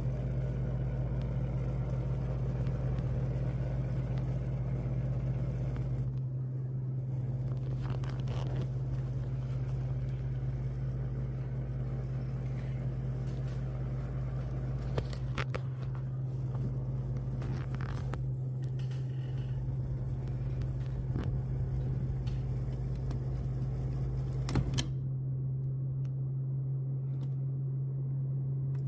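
System air conditioner making a steady, low diesel-engine-like drone after cleaning, with a deeper rumble underneath that eases off about six seconds in and again near the end; its pump is the suspected source of the noise. A couple of faint clicks stand out.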